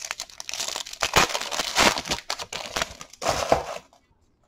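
Foil wrapper of a Bowman Chrome baseball card pack crinkling and rustling as it is torn open by hand and the cards are pulled out. The crackly rustle stops abruptly about four seconds in.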